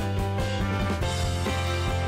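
Background music with a steady beat and a prominent bass line.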